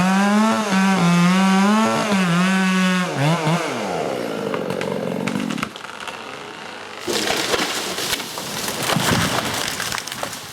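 Chainsaw running at high revs under cut for about three and a half seconds, then dropping back toward idle. About seven seconds in, a loud crashing and cracking of wood and branches follows as the felled tree comes down.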